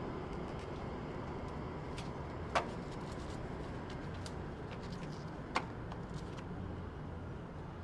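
Paper banknotes rustling and crinkling as gloved hands handle them and pick them out of a box, with two sharp snaps about three seconds apart, over a steady low background hum.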